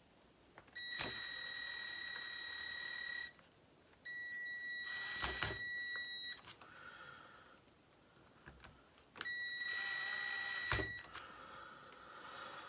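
Three long, steady, high-pitched electronic beeps, each lasting about two seconds, with short pauses between them and a few sharp clicks.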